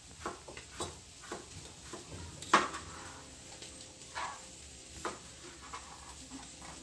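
Knife cutting cooked chicken on a plastic cutting mat: scattered light taps and clicks, with one sharper knock about two and a half seconds in.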